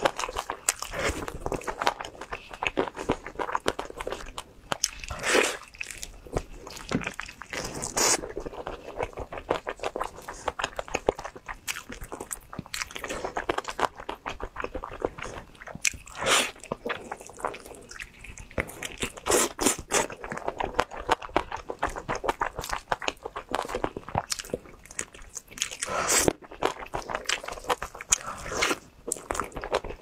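Close-miked chewing and biting of glazed cola chicken wings: a steady run of wet chewing clicks with louder crunchy bites every few seconds.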